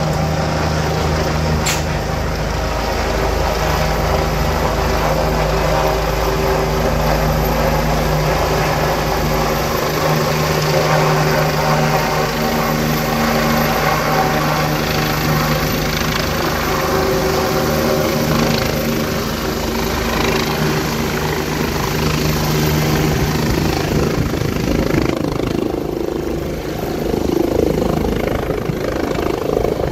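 Helicopter coming in to land, hovering low and descending: loud, steady rotor and turbine noise with a low hum underneath. One sharp click about two seconds in.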